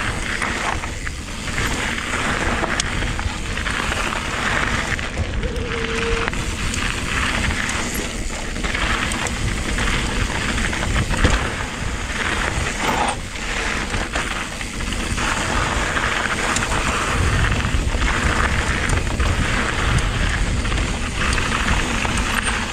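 Electric mountain bike's tyres rolling and crunching over loose gravel on a trail descent: a steady rushing noise with scattered knocks from the bike over the rough ground.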